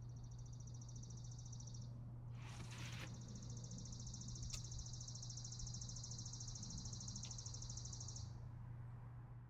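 Faint outdoor ambience: a high, rapidly pulsing insect trill runs in two long stretches, broken by a brief rush of noise about two and a half seconds in. A steady low hum lies under it throughout.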